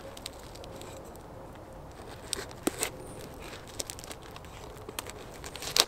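Birch bark being pried and peeled from a fallen birch log with a knife: quiet crinkling and tearing with a handful of sharp cracks, the loudest near the end.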